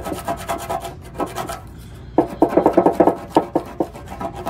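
Plastic scraper scraping loosened, flaking paint off the steel fuel tank of a Honda CB450, the paint blistered by paint stripper. Short repeated strokes, a few at first, then a quick run of louder strokes in the second half.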